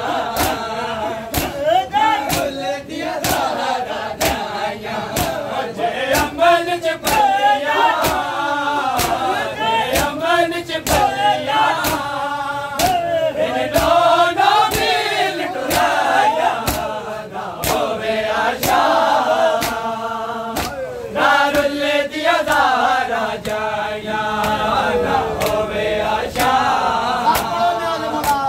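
A group of men chanting a mourning lament in unison, their voices rising and falling. A steady beat of sharp slaps, about one to two a second, runs under it, typical of chest-beating (matam) keeping time.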